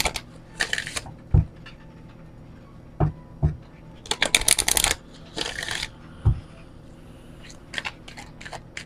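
Oracle card deck shuffled by hand: papery rustles and a dense riffle of cards about four seconds in, with a few dull knocks as the deck is handled and light flicks of cards near the end.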